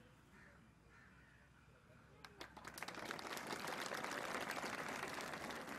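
Crowd applauding, the clapping starting about two seconds in and quickly building to a steady round of applause.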